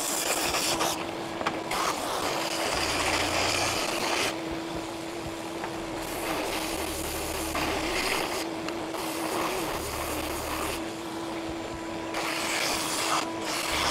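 Ridgid oscillating edge belt sander running with a steady motor hum. Its belt rasps in several separate passes as a small wooden wedge is pressed against it and lifted off, shaping the wedge's rounded edge to fit.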